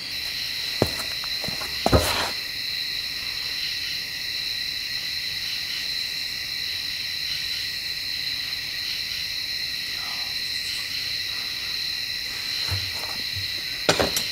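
Crickets chirring in a steady, high-pitched, unbroken drone, with a couple of sharp knocks in the first two seconds and another near the end.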